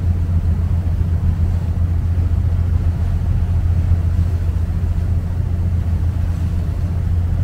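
Engine of a river water bus under way: a steady low drone with an even rush of noise above it.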